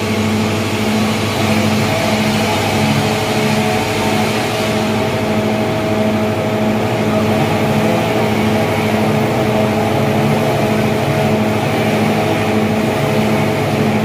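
Sawmill engine running steadily at an even speed, a constant hum that neither rises nor falls.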